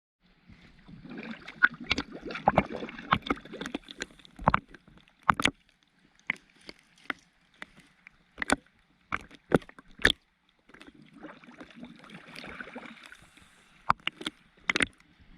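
Underwater recording: a scuba diver's exhaled bubbles gurgle in two spells, with sharp clicks scattered throughout.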